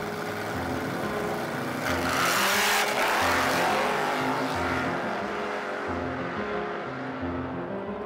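Background music with a repeating bass line. About two seconds in, a loud, rushing car sound cuts in and fades away over the next few seconds.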